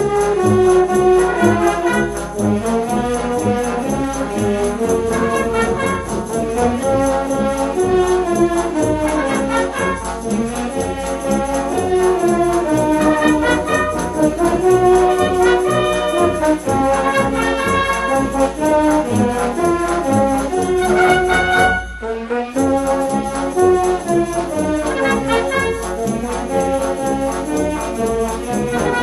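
Band music from a wind band, with brass carrying the melody. There is a brief drop in level about three-quarters of the way through before the playing resumes.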